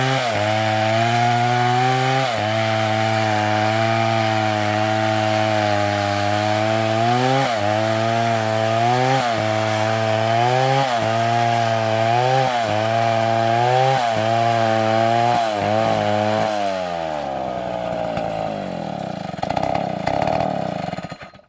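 Two-stroke chainsaw at full throttle cutting wood, its pitch dipping again and again as the chain bites and recovering between cuts, with the dips coming faster in the second half. About 16 seconds in, the engine note falls away as the saw slows down.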